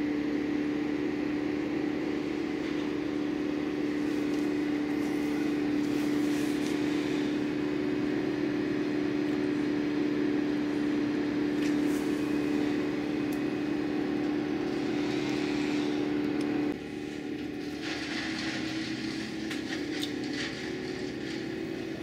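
Bandit 15XP drum wood chipper running with a steady, loud hum. About 17 seconds in, the hum drops abruptly and changes pitch, and after it comes an irregular crackling and rattling as limbs and leaves are fed in.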